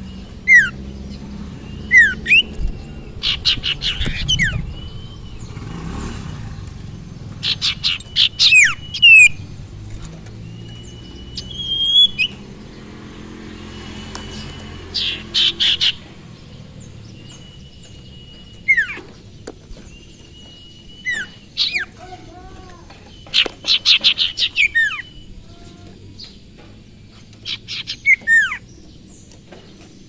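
Caged sirtu (sirpu) songbird singing in repeated loud phrases: fast rattling trills, sharp falling whistles and a few short held whistles, with gaps of a second or two between phrases.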